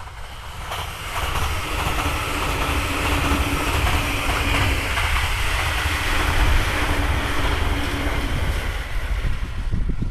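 E259 series Narita Express electric train passing at speed: a steady rush of wheels and air that builds about half a second in and holds, with a steady hum that comes and goes twice. Wind buffets the microphone.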